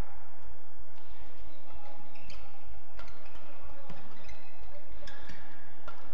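Badminton rally: rackets striking the shuttlecock with sharp hits about a second apart, with short high squeaks of shoes on the court floor between them.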